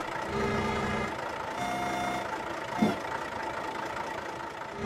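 Cartoon sound effects of a small tracked pipe-laying crane lifting a pipe with its grapple: a steady mechanical motor whir that comes in stretches, with a brief gliding squeak about three seconds in.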